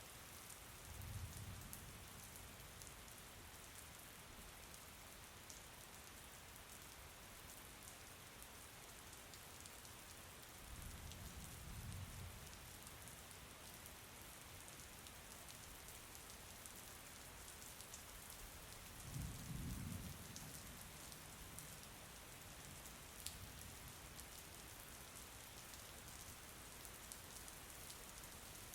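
Steady, quiet rain falling, with fine drop ticks in it. Three brief low rumbles come about a second in, near the middle and about two-thirds through.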